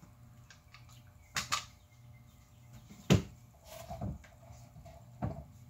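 Solid-body electric guitar being handled and turned over onto a rubber work mat: a few knocks and bumps of wood, the loudest about three seconds in.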